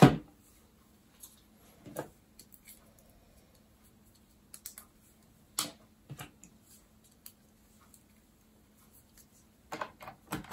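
Scattered clicks and light knocks of hands handling gear, a second or more apart, with a quick run of clicks near the end.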